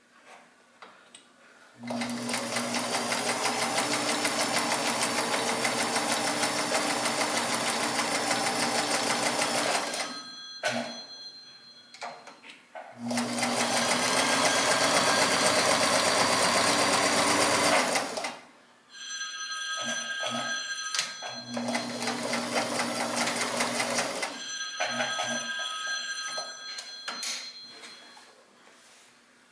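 Sears Kenmore 158.14100 all-metal sewing machine running in three long spells of stitching with short stops between; the last spell carries a steady high whine.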